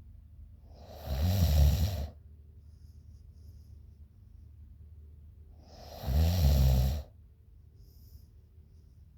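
A sleeping woman snoring: two loud snores about five seconds apart, each lasting about a second, with faint breathing out between them.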